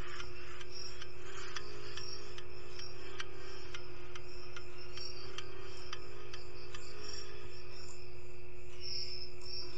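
Clicking of a Fujitsu laptop's touchpad buttons and keys, sharp single clicks about once or twice a second at uneven spacing, over a steady electrical hum.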